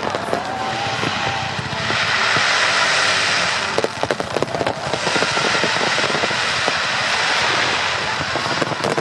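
Fireworks display: long stretches of steady hissing and crackling from bursting shells, with a cluster of sharp pops about four seconds in and another near the end.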